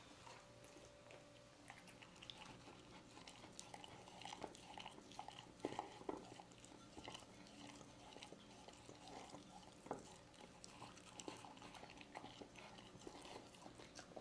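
Quiet, irregular licking and lapping as a dog cleans out its emptied ceramic bowl, with small clicks of the tongue and bowl. A few sharper knocks of the bowl stand out, two close together about six seconds in and one near ten seconds.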